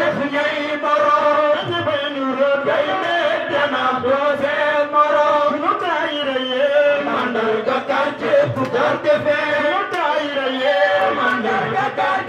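A man chanting a devotional religious poem into a microphone, holding long notes and gliding slowly between pitches.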